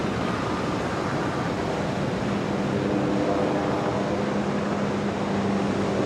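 Loud, steady rushing of big breaking surf and wind on the microphone, with a low steady engine hum joining underneath about two seconds in.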